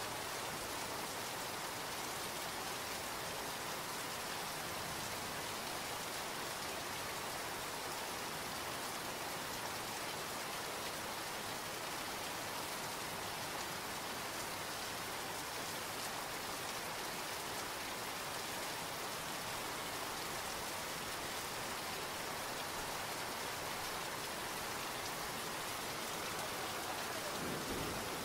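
Steady rain falling, an even hiss of rain with no break or change.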